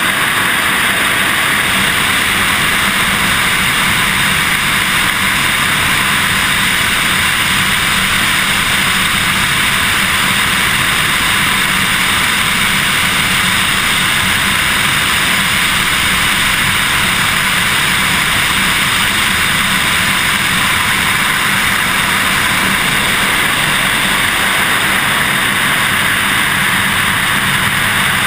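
Steady rush of wind over a wing-mounted camera on a Super Decathlon aerobatic plane in a sideslip on approach to landing, with the low drone of its engine underneath. The sound stays even throughout, with no distinct touchdown bump.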